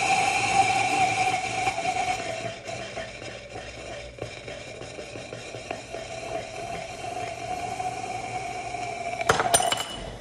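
Gummy bear burning in molten potassium chlorate in a glass test tube: a steady hissing rush with a held pitched tone, loudest at first, dropping after a couple of seconds and swelling again. About nine seconds in, the glass tube falls and clatters on the floor with a few sharp clinks.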